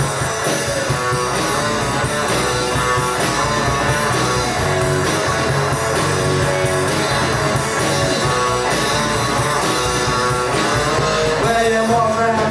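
Rock song's instrumental passage: electric guitar playing over a steady drum beat, with no lead vocal.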